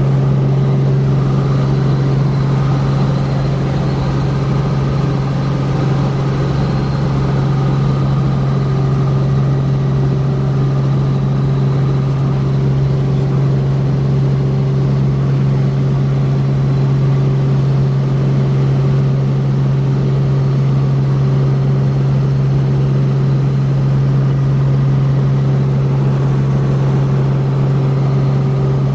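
Light helicopter's engine and rotors heard from inside the cabin in steady cruise: a loud, unbroken drone with a strong low hum and a few steady higher tones above it.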